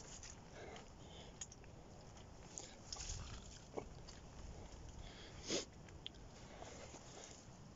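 Faint footsteps on a waterlogged mud track: scattered soft squelches and small clicks, the loudest about five and a half seconds in.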